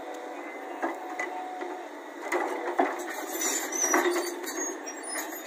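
Volvo crawler excavator running as it digs: steady engine and hydraulic noise, broken by several sharp knocks and clanks of the bucket working through soil and stones, with a few thin high squeaks in the second half.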